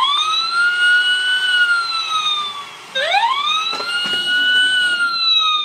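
A siren sounding two wails, each rising quickly and then falling slowly over about three seconds.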